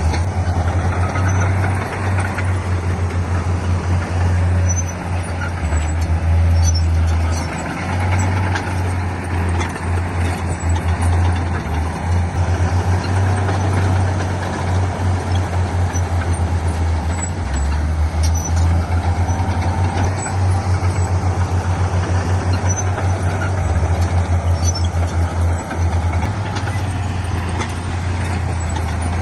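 Heavy diesel engine of earthmoving machinery working under load, a deep running note that steps up and down in pitch as the load changes.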